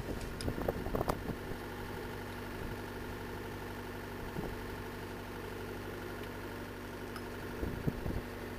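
Drilling rig's engine idling steadily, with a few light metal clinks and knocks of hand tools on the drill rod in the first second or so and again near the end.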